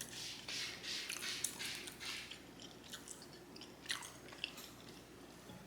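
Close-miked chewing of creamy pasta and chicken: wet mouth sounds several times a second, softening after about two seconds, with a couple of small clicks near the end.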